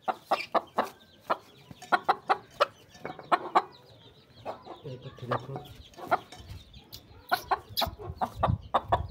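Hens clucking in a quick, irregular run of short calls, with a few low thuds around the middle and near the end.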